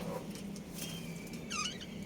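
Budgerigars chirping, with a short, clear warbled chirp about three quarters of the way in, over a steady low hum.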